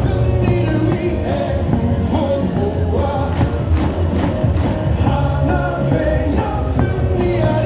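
Stadium crowd singing a cheer song along with loud amplified music, with rhythmic clapping about twice a second.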